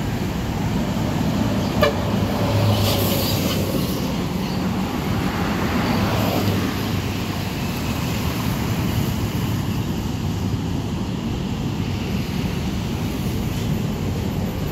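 Large coach buses and other traffic driving past, with a steady engine rumble and tyre noise, and a short horn toot about two seconds in.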